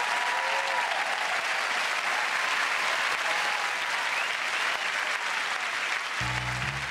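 Studio audience applauding steadily, with a few cheers near the start. About six seconds in, a grand piano begins playing low sustained chords.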